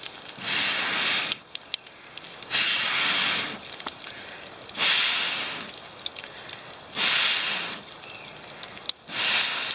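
A person blowing long breaths through a drinking straw into the embers at the bottom of a small wood-burning stove, fanning the fire so the damp-barked wood catches. Five blows about two seconds apart, each a hiss lasting about a second, with a few light crackles from the fire between them.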